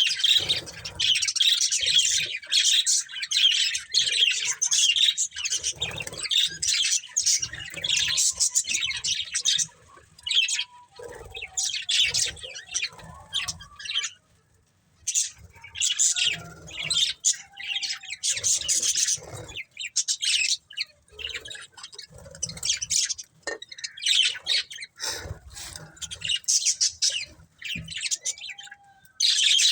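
Budgies chirping and chattering in quick, dense runs of high notes, with brief lulls about ten seconds and about fourteen seconds in.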